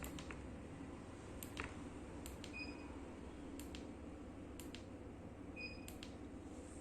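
A flashlight's switch being clicked repeatedly, about once a second. Several of the clicks are followed by a brief, high beep.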